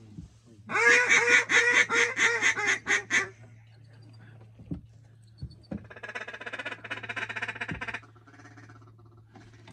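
A hunter blowing a duck call: a loud run of about ten quacks over two and a half seconds, tapering off. A few seconds later comes a quicker, quieter chatter of notes lasting about two seconds.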